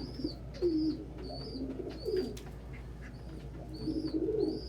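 Domestic pigeons cooing, several low warbling coos about half a second each, with short high-pitched notes repeating over them.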